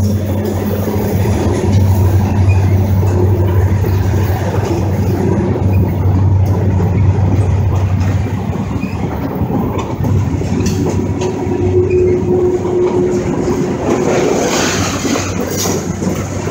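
Freight train of tank cars and hoppers rolling past close by: a steady rumble and clatter of steel wheels on the rails. The deep low rumble eases about halfway through, a faint thin squeal rises in the second half, and rattling picks up near the end.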